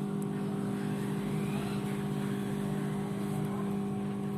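Steady electric hum with a low constant tone, from the blower of a hot-air rework station heating the flux-pasted charging connector to melt its solder.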